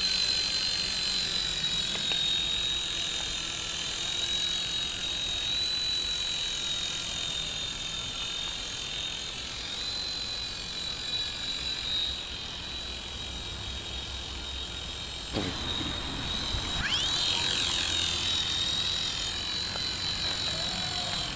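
Silverlite Spycam 2 coaxial micro RC helicopter's electric motors and rotors whining as it flies, a steady high whine that wavers slightly in pitch. About two-thirds of the way in the sound breaks off abruptly, then the whine rises back up as the rotors spool up again.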